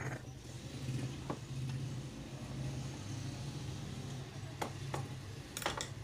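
Light clicks and taps of a pressure-cooker lid and screwdriver being handled during handle repair: a few scattered knocks, with a small cluster near the end, over a steady low hum.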